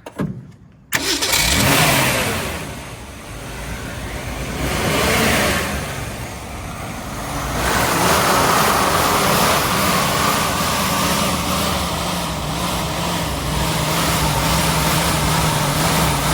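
1965 Ford Mustang engine catching about a second in, revving up twice, then running steadily at a raised speed. The owners suspect the carburetor is flooding.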